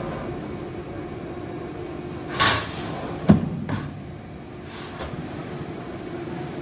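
CNC panel bender (folding center) working a sheet-metal panel: a steady machine hum with clunks and knocks from the moving tooling, the loudest a sharp knock just past three seconds in, and short rushing sounds about two and a half and five seconds in.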